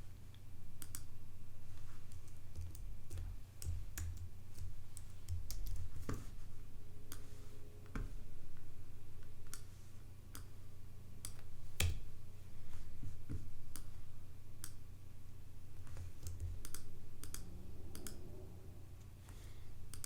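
Computer mouse and keyboard clicks, scattered at irregular intervals, over a steady low hum.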